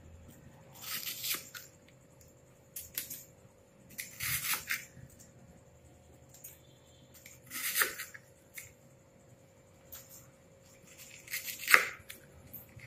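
A knife scraping and prying frozen cubes out of a plastic ice tray, in short scraping bursts every few seconds, with a sharp click near the end.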